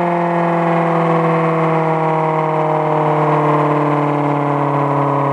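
Homemade air raid siren sounding a loud, continuous wail whose pitch slowly falls as it winds down.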